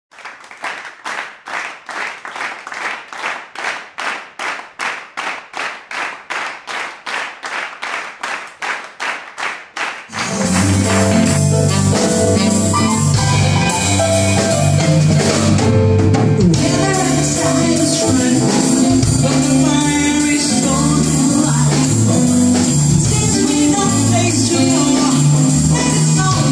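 Live pop band music: about ten seconds of a lone, steady percussive beat of sharp strokes, then the full band comes in at once with drums, bass, guitar and saxophone and plays on loudly.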